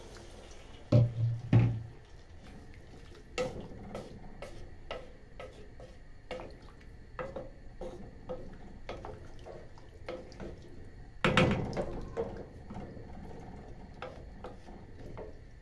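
Wooden spoon stirring cubed butternut squash and carrots in water in an aluminium pot, with scattered knocks and scrapes of the spoon against the pot. There are louder knocks about a second in and again around eleven seconds.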